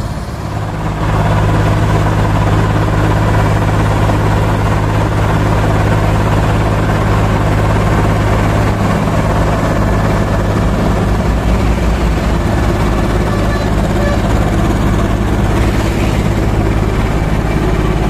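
Wirtgen W1000 asphalt milling machine running close by: a loud, steady low diesel drone with a rough, gritty noise over it, stepping up louder about a second in.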